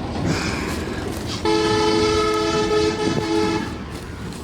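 A horn sounds once for about two seconds, starting about a second and a half in: a steady chord of two close low notes with many overtones that then cuts off.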